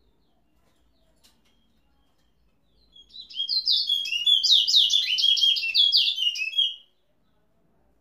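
A caged male towa-towa (chestnut-bellied seed finch) sings one fast phrase of about four seconds, starting about three seconds in: a rapid run of short, high, down-slurred whistled notes.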